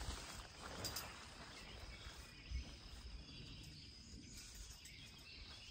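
Faint outdoor ambience with a steady insect chirr, and a few soft rustles of the nylon tent in the first half as the center pole is stood up inside it.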